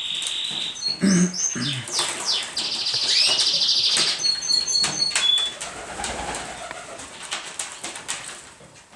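Pigeons flapping and clattering their wings, with some low cooing. High chirps and a fast trill come through about three to four seconds in.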